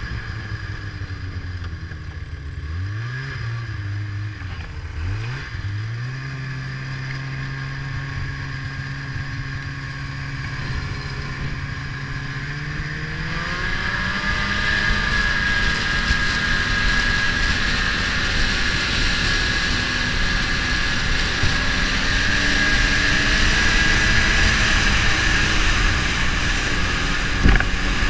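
Ski-Doo snowmobile engine heard from the rider's seat, running at low speed with the throttle eased on and off, then rising in pitch and getting louder about halfway through as the sled speeds up, holding a higher steady pitch after that. A single sharp knock near the end.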